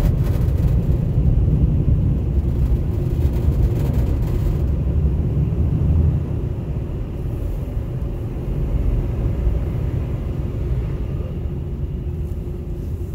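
Steady low rumble in the cab of a GMC Savana cargo van with its engine running. The level drops a little about six seconds in.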